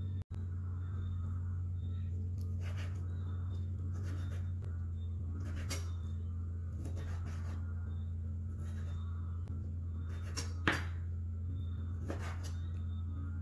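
A kitchen knife slicing raw pork on a wooden cutting board, each cut ending in a short tap on the board about every one and a half seconds, the loudest a little past ten seconds in. A steady low hum runs underneath.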